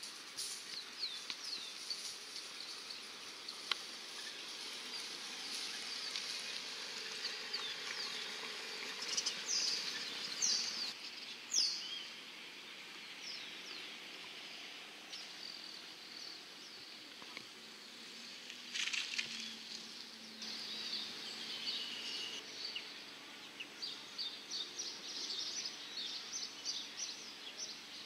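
Outdoor ambience of birds chirping and calling in the trees, short quick notes in scattered clusters and a rapid run near the end, over a steady high background hiss. A faint low hum comes in briefly about two-thirds through.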